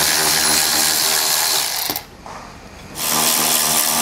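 Cordless electric ratchet spinning a bolt out of a bracket with a 9 mm socket: a steady motor whine that stops about two seconds in and starts again about a second later.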